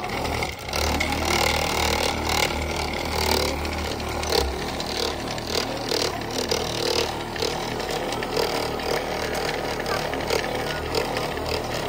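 Handheld electric car polisher running steadily, its round buffing pad working compound into the car's paint, with a low motor hum that is strongest for the first few seconds.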